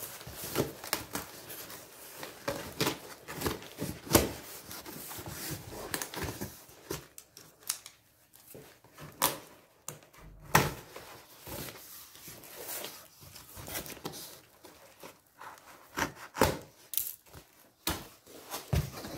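Cardboard box being cut open with scissors: blades snipping and scraping along the taped flaps, cardboard tearing and rustling as the flaps are pulled back, with scattered sharp knocks and clicks.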